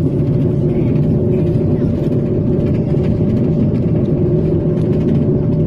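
High-speed passenger train running, heard from inside the carriage: a loud, steady rumble with a faint steady hum over it.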